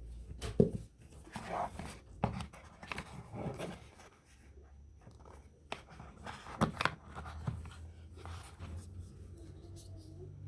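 Hands handling packaging and a smartphone: a series of short rustles, scrapes and sharp clicks at uneven intervals, the sharpest about half a second in and again around six and a half seconds.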